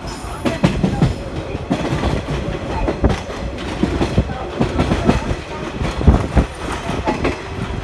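Running noise heard from inside a JNR 115 series electric train car moving at speed: a steady low rumble broken by irregular knocks and clicks as the wheels pass over rail joints.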